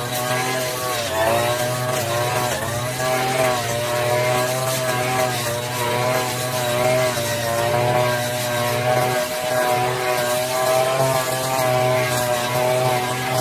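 Petrol brush cutter engine running at high speed, cutting thick, tall grass. Its pitch dips and recovers a few times early on under the load, then holds steadier.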